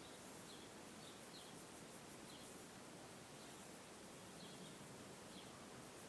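Faint, short, high chirps from a small songbird, about eight scattered irregularly, over a steady outdoor hiss.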